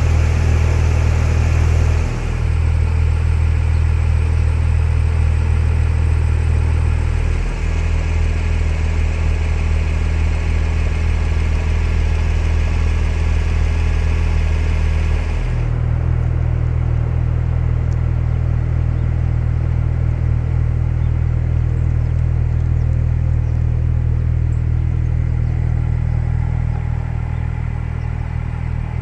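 A 2014 Porsche 911 Turbo S's twin-turbocharged 3.8-litre flat-six idling steadily, its tone stepping slightly a few times.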